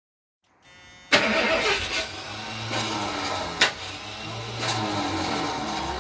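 1983 Ford Econoline van's long-dormant engine being cranked to start, just after its moving parts were lubricated with a gasoline-and-oil mixture. The sound begins abruptly about a second in and carries on unevenly, with a sharp knock about three and a half seconds in.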